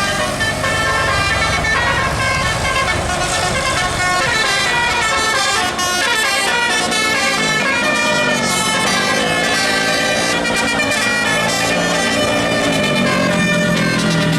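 Bus 'telolet' musical air horn playing a fast tune of short stepped notes, loud and continuous.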